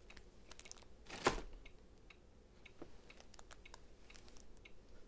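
Faint scattered clicks and taps of small objects being handled, with one louder brief rustle or knock about a second in.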